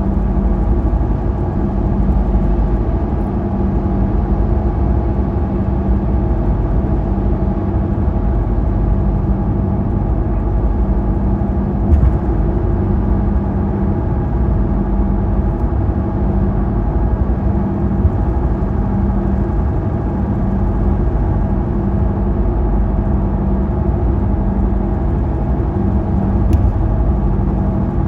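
Car cruising on the interstate: steady engine and tyre hum, with a small bump about twelve seconds in and another near the end.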